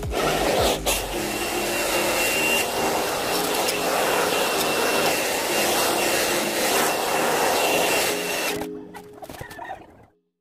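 Handheld hair dryer blowing steadily with a thin high whine, switched off about eight and a half seconds in.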